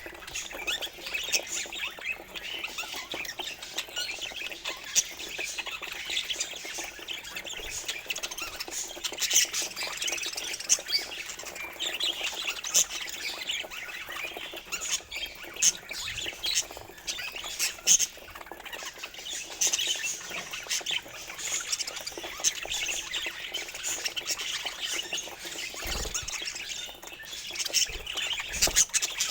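Budgerigars chattering and squawking, a dense run of overlapping chirps and warbles with no pause.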